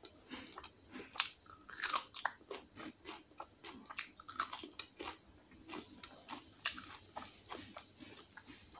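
Crunchy bites into a raw green chilli and chewing, with the loudest crunches about one to two seconds in, then smaller chewing crunches.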